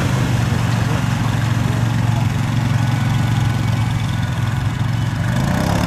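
ATV engine running steadily as its wheels churn through a flooded mud pit, its pitch rising slightly near the end.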